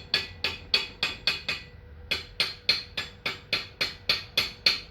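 Hammer blows tapping steadily while a chopper (machete) handle is fitted, about four sharp strikes a second with a short pause about a second and a half in.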